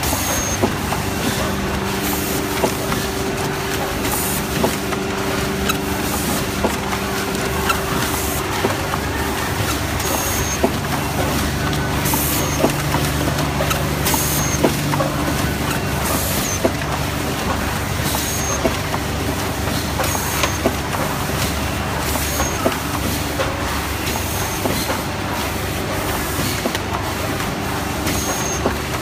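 Automatic pouch filling and packing machine (HC-150n) running, with a steady mechanical hum and regular clacks. Short air hisses from its pneumatic actuators repeat about every two seconds as it cycles.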